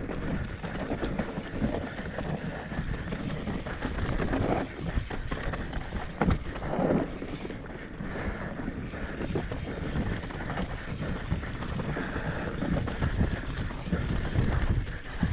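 Mountain bike descending a dry dirt trail at speed: wind rushing over the microphone over the rumble of tyres on dirt, with sharp knocks and rattles of the bike over bumps.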